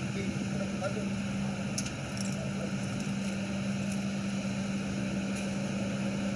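Steady low hum of an idling vehicle engine, with a few faint ticks.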